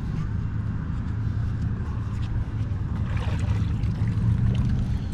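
A steady low engine drone, like a motor running on the river.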